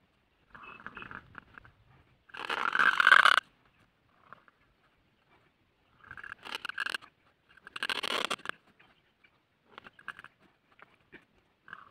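Reed pen (qalam) scratching across paper as ink strokes are drawn: several separate strokes, the loudest and longest about two seconds in, lasting about a second, with more around six and eight seconds.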